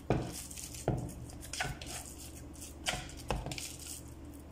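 Bare hands squeezing and slapping raw minced beef into a ball inside a bowl, giving five soft, irregularly spaced thumps.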